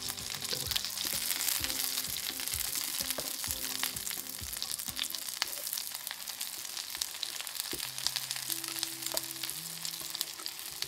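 Oil sizzling and crackling under egg-battered oyster pancakes frying in a pan. A wooden spatula taps and scrapes against the pan now and then as the pancakes are turned and lifted out.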